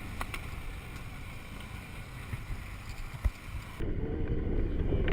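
A 250cc supermoto motorcycle rolling down a steep hill, heard as a low rumble under wind buffeting the microphone, with a single knock about three seconds in. Near the end the sound changes and a steady engine hum comes in.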